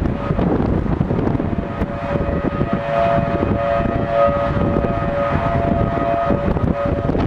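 Outdoor tornado warning siren sounding a steady two-note tone that swells and fades, over wind and road noise in the car.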